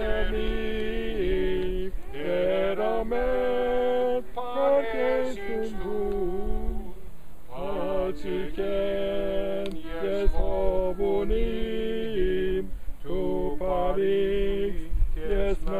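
A small mixed group of men and women singing a hymn unaccompanied, several voices together in long held phrases with short pauses between them.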